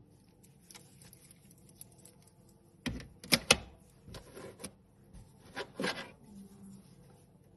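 Metal wristwatches and a steel mesh bracelet clicking and clattering against a tabletop as they are handled, in a few short bursts, the loudest knocks about three seconds in.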